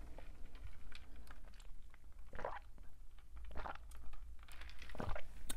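A person sipping a drink close to the microphone: a few separate short sips and swallows.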